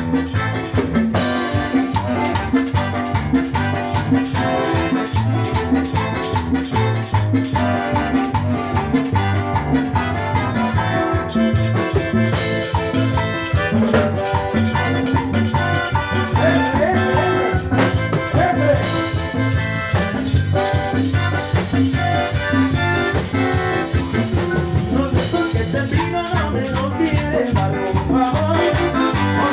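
A tropical dance orchestra playing Latin music in a salsa style, with brass, drum kit and percussion over a steady beat.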